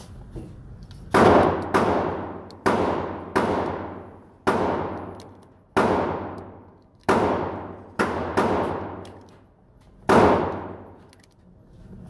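Glock 19 9mm pistol firing steel-cased rounds, about ten shots at an uneven pace of roughly one a second, each shot ringing out in a long echo off the walls of an indoor range.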